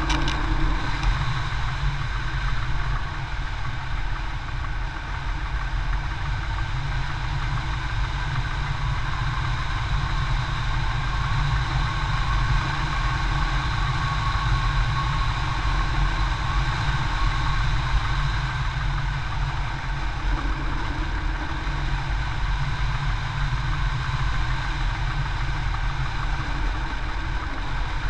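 Airflow over a hang glider in flight, heard as steady wind rush and low buffeting on a camera mounted to the glider's wing, with faint steady higher tones running above it.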